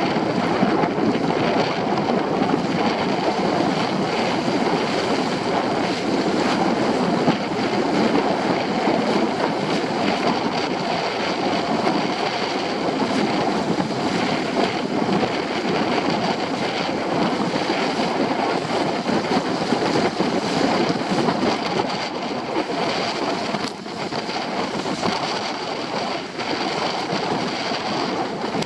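Steady rush of water and spray along the hulls of a Hobie Tiger F18 catamaran sailing fast in strong wind, mixed with wind buffeting the microphone.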